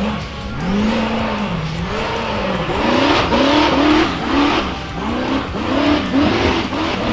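Rock bouncer race buggy engines revving up and down again and again, the pitch rising and falling in swoops that come quicker after about three seconds.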